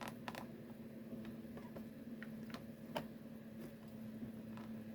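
A few light, sparse plastic clicks and taps from handling a toy revolver's ammo shells and cylinder, over a faint steady hum.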